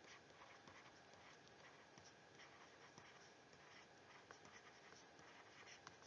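Faint scratching and light taps of a stylus writing on a tablet screen, with a sharper tap about four seconds in and another near the end.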